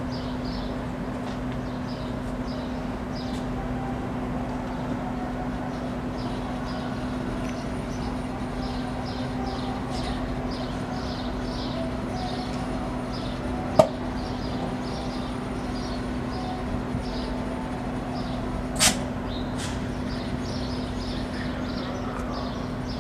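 A GO Transit bilevel push-pull train standing at the platform: a steady low hum from the idling train, with faint high chirps over it. Two sharp knocks come about five seconds apart, a little past the middle.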